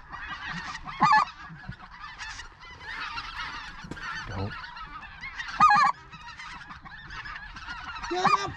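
A flock of white-fronted geese (specklebellies) calling overhead: many overlapping short yelping calls, with two louder clusters of calls about a second in and near six seconds.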